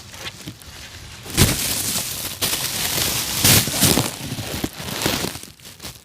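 Packaging crinkling and rustling as it is handled and opened, in irregular noisy bursts from about a second and a half in.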